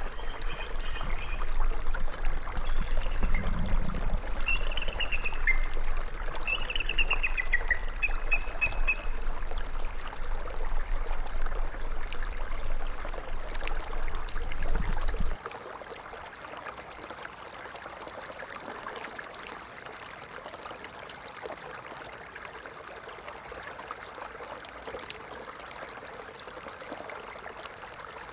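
Stream flowing, a steady rush of water, with a few short bird calls in the first several seconds. A deep low rumble under the water cuts off suddenly about halfway through, and the water goes on more quietly.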